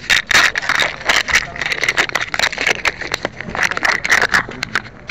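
Fabric rubbing and scraping against a concealed camera's microphone, with many sharp clicks and crackles as the camera is jostled.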